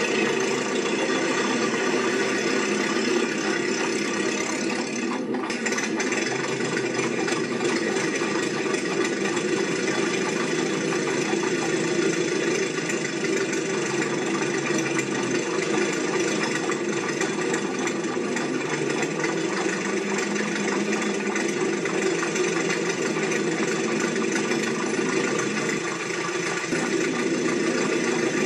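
Steady mechanical drone, like an engine running, holding even throughout.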